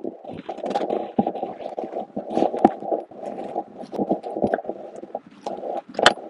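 Wind buffeting the phone's microphone: a rough, crackling rumble with many sharp pops through it, dipping briefly about five seconds in.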